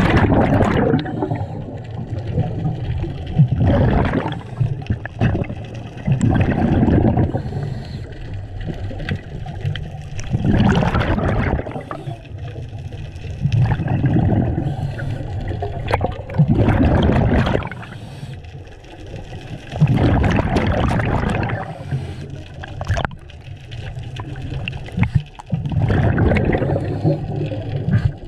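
Scuba regulator breathing underwater: a gurgling rush of exhaled bubbles about every three to four seconds, with quieter stretches between breaths.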